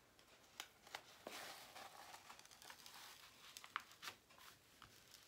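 Faint crinkling and rustling of a plastic-covered diamond painting canvas being handled and smoothed out, with a few light clicks and taps.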